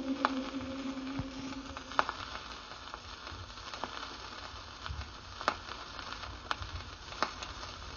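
Steady hiss with scattered clicks and pops, the crackle of an old recording between pieces of music; a held low musical note fades out in the first two seconds.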